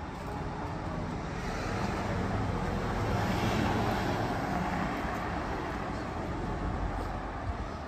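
A passing motor vehicle: its noise builds to a peak about three to four seconds in and then fades as it goes by.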